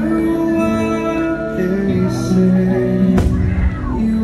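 Fireworks show soundtrack music with long held notes, and a single firework bang about three seconds in.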